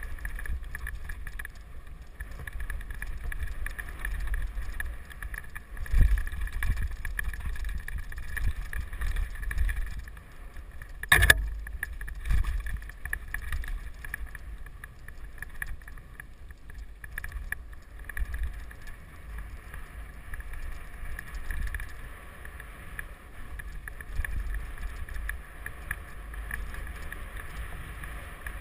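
Mountain bike riding over a rough dirt trail: steady wind on the helmet-camera microphone over the rumble and rattle of tyres and frame on the ground. A sharp knock comes about eleven seconds in, with a smaller one a few seconds earlier, as the bike hits bumps.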